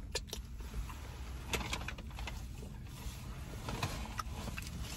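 Eating sounds: finger-licking, lip smacks and quiet chewing, with a few short clicks and rustles of a paper food wrapper, over a low steady rumble inside a car cabin.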